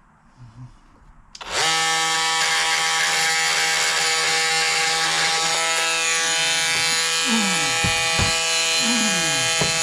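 Oscillating multi-tool switches on about a second and a half in and runs with a steady buzz, sawing off a nail driven into wood. A few short wavering tones come through over the buzz in the last few seconds.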